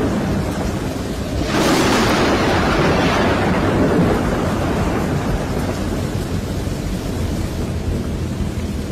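Thunderstorm: steady rain, with a thunderclap that breaks suddenly about a second and a half in and rumbles away over the next few seconds.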